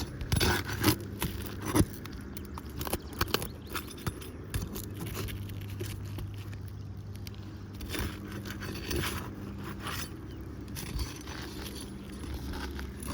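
Irregular scraping and clicking of a hand tool working under brittle asphalt shingles to break them loose; the shingles are tearing from mat transfer rather than releasing cleanly.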